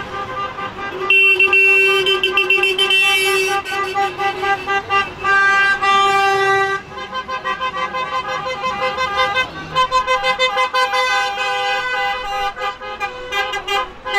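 Car horns from a line of passing cars, several pitches at once: long held blasts for the first few seconds, then many shorter repeated honks overlapping.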